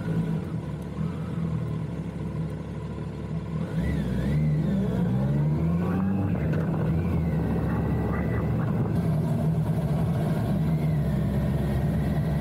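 Kawasaki GTR 1400 motorcycle's inline-four engine running under way, getting louder and revving up through rising pitch about four seconds in, then holding steady.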